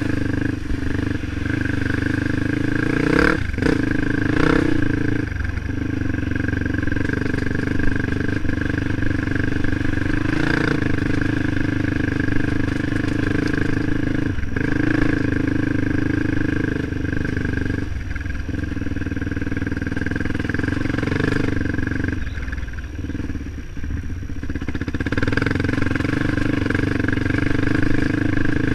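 Motorcycle engine running steadily under way on a dirt trail. It has short dips every few seconds and a longer lull about two-thirds of the way through.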